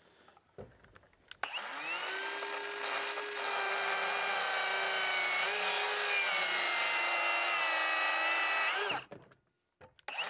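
Hilti SC 60W-A cordless rear-handle circular saw making a 45-degree bevel cut through framing lumber. The motor winds up about a second and a half in, runs at a steady pitch through the cut with only slight dips under load, and winds down near the end.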